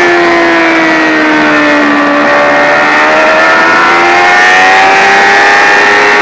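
Sport motorcycle engine at high revs heard from on board. Its pitch sags a little over the first two seconds as the bike is leaned into a corner, then climbs steadily as it drives out under throttle, over a steady rush of wind noise.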